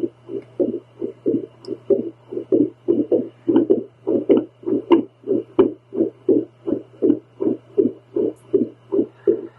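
A woman's heartbeat picked up by a handheld home doppler: quick, even whooshing pulses, about three a second, over a steady low hum.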